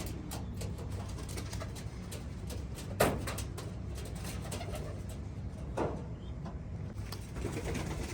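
Domestic pigeons cooing, with a few sharper, louder sounds at about three and six seconds in, over a steady low rumble.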